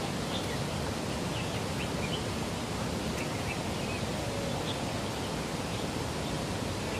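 Steady rushing water of a koi pond, with faint short bird chirps scattered through it.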